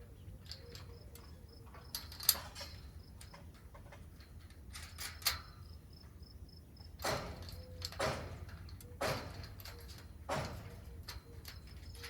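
Hardware being fitted to a steel cross connector on a hoophouse purlin and rib: a sharp metal click about two seconds in, another about five seconds in, then short scraping strokes about once a second in the second half, with faint insect chirping going on throughout.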